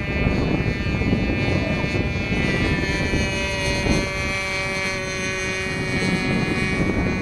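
Motor and propeller of a radio-controlled model aircraft in flight overhead: a steady hum of several pitched tones that shifts slightly in pitch partway through, with wind rumbling on the microphone.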